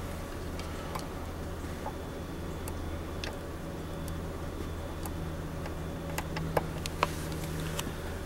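Scattered small clicks and taps from multimeter probe leads being handled and pressed against car amplifier terminals, over a steady low hum.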